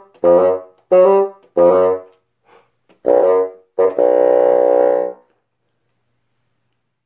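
Solo bassoon playing a phrase of short, separated notes, ending on a held note of about a second that stops about five seconds in.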